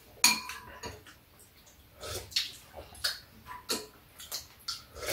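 Eating at a table: metal chopsticks and spoons clicking and clinking against bowls and a steel dish, irregular short clicks several times a second with mouth sounds of chewing, the loudest clink about a third of a second in.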